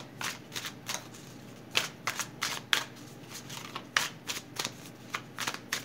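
A tarot deck being shuffled by hand: a string of sharp, irregularly spaced card clicks and slaps.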